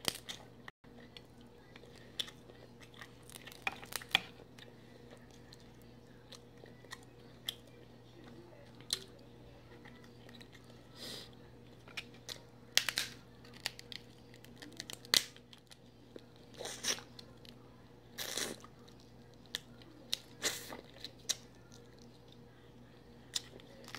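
Dungeness crab leg shells being cracked and pulled apart by hand, with sharp snaps and crunches at irregular intervals, mixed with biting and chewing of the crab meat.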